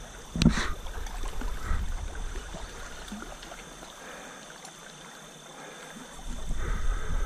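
Water of a small stream running, with a sharp knock about half a second in and a low rumble that dies away in the middle and comes back near the end.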